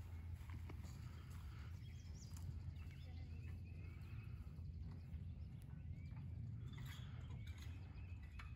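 Quiet outdoor ambience: a steady low wind rumble on the microphone, with faint bird chirps and a few light clicks.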